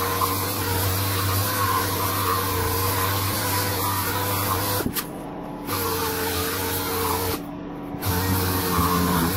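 Random orbital sander running with a steady hum and hiss as it sands the steel axe head with a fine P320 disc; the sound twice drops away briefly, about halfway through and again near the end.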